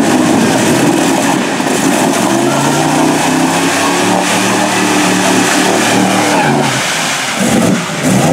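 Chevy small-block V8 of a mud truck held at high revs, running steadily with small wavers in pitch as its tractor tires spin through deep mud; the revs dip and break up briefly near the end.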